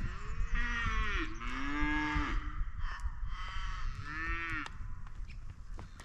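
Cattle mooing: several overlapping moos in the first two and a half seconds and one more about four seconds in.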